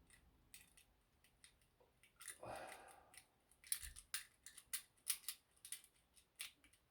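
Faint metallic clicks of lock-picking tools worked in a lever lock's keyhole: a few scattered ticks at first, a brief soft rustle near the middle, then a run of sharper clicks, about two a second, in the second half.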